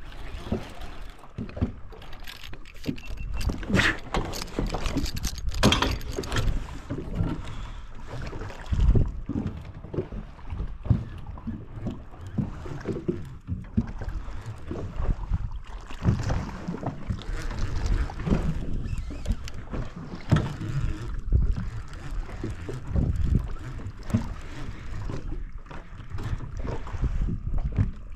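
Wind buffeting the microphone and water slapping against a small boat's hull, in uneven gusts and slaps.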